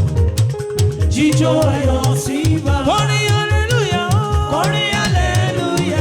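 Live African gospel band music with a steady dance beat: a busy bass line, percussion, and a melodic lead line with bending, gliding notes.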